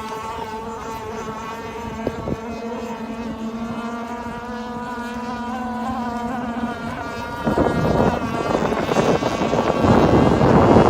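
Petrol engine of a radio-controlled gas model boat running at a steady pitch. It turns louder and rougher about three-quarters of the way through, with a rush of water noise as the boat runs closer.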